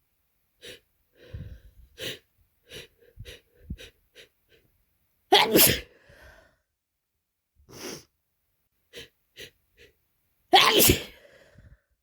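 A person with a heavy head cold taking a quick run of short sniffs and hitching breaths, then sneezing hard twice, about five and a half and eleven seconds in, with a few sniffles between the sneezes.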